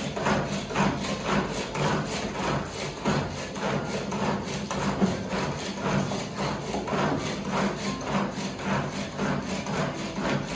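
Pull-cord manual onion chopper being pulled again and again, its spinning blades whirring and clattering through chopped onion in a steady rhythm of repeated strokes.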